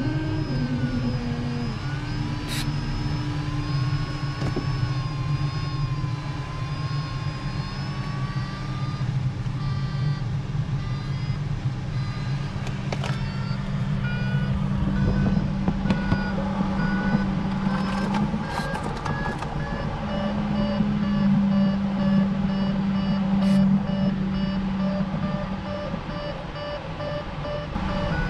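Inside a glider cockpit, a steady rush of airflow over the canopy. Over it an audio variometer sounds, first as a continuous wavering tone, then, from about halfway through, as a quick beeping whose pitch climbs slowly. The beeping is the variometer's signal that the glider is climbing in lift.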